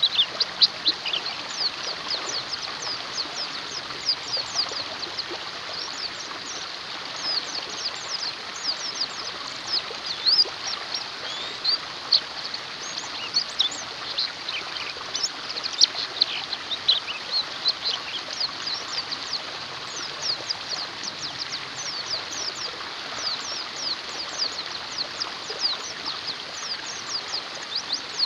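White-eyes (pleci) chattering and trilling in a dense, continuous stream of quick, high chirps over a steady rush of flowing water.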